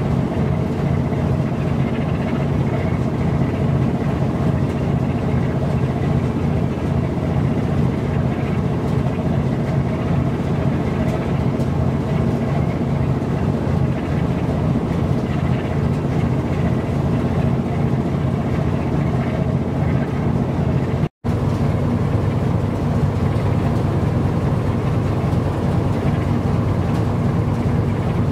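Steady low engine drone at constant speed, unchanging, with a momentary dropout about three quarters of the way through.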